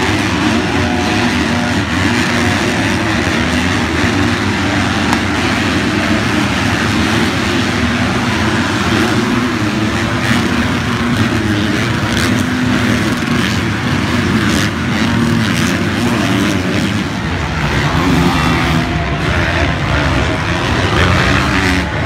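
Motocross race bikes' engines revving hard around the track, the pitch rising and falling as riders open and close the throttle and shift, with several bikes overlapping.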